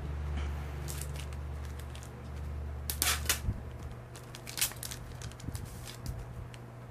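Trading-card pack and cards being handled: crinkling and rustling in short clusters, loudest about three seconds in, with small ticks after. A steady low hum underneath stops about halfway through.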